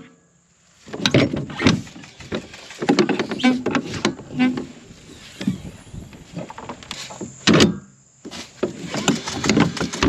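Irregular metallic clanks and knocks of hand work on a combine corn head's gathering chains, one of them worn loose and due for replacement.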